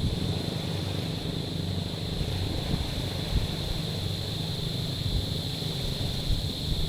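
Low, steady rumble of waves washing over a stony shore, with wind buffeting the microphone.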